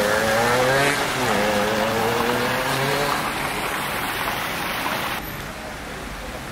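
Fountain water splashing steadily, with a motor vehicle's engine passing during the first three seconds. The sound drops abruptly to a quieter outdoor background about five seconds in.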